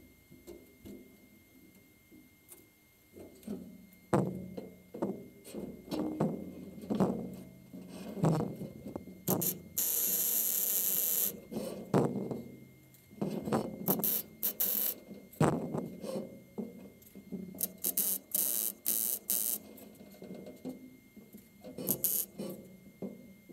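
MIG welder plug-welding the steel repair panels of a classic Mini's rear wheel arch: a series of short arc crackles, one of them held for about a second and a half partway through.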